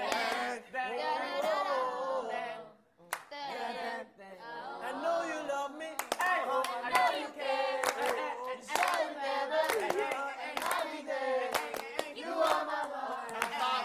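A group of voices singing together, with hand claps keeping the beat from about six seconds in.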